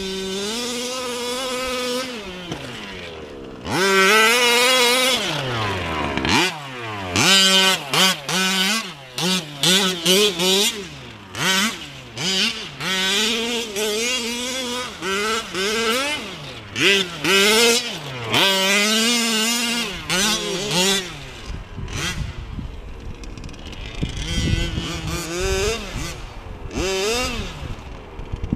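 Losi 5ive-T 1/5-scale RC truck's two-stroke petrol engine revving up and down as it is driven, the pitch climbing and dropping with each burst of throttle. In the last several seconds it is fainter and rougher.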